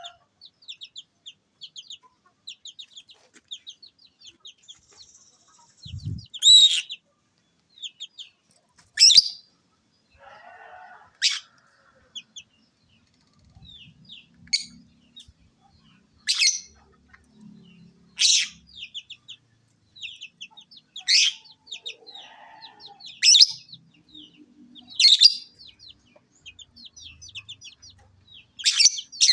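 Lovebird calling: a fast stream of high twitters broken about every two to three seconds by a loud, short shrill shriek.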